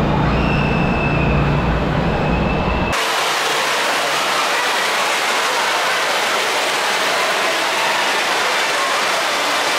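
Steady low mechanical rumble with a faint whine for about three seconds, then an abrupt cut to a steady hiss of rushing water filling the hall of an indoor water park with its slides.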